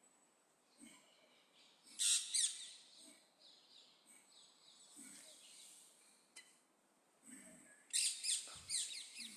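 Bird chirping in two quick bursts of rapid, falling chirps, one about two seconds in and another near the end.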